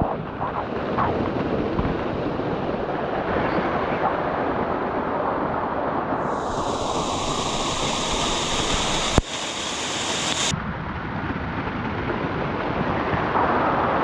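Waterfall pouring onto rock close by: a steady, loud rush of falling water that grows hissier for a few seconds in the middle, with a single sharp click about nine seconds in.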